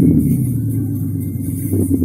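Synthetic engine sound from the Renault Captur's R-Sound Effect, played through the car's speakers: a steady, engine-like drone whose pitch eases down slightly as the revs settle.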